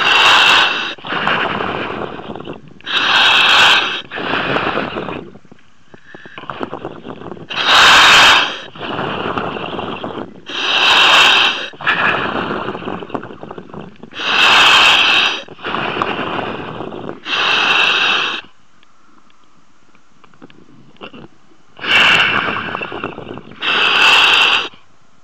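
A surface-supplied diver breathing on a demand regulator, heard over the diving radio. Each breath is a sharp hiss of about a second, followed by a longer, softer rushing sound, and the cycle repeats every three to four seconds. There is a pause of a few seconds a little past the middle.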